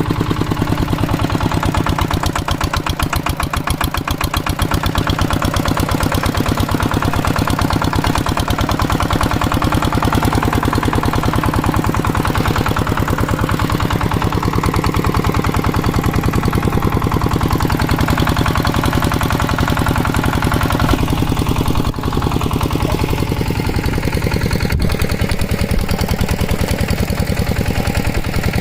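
Hand tractor's single-cylinder diesel engine running steadily, its rapid, even firing pulses chugging on without a break.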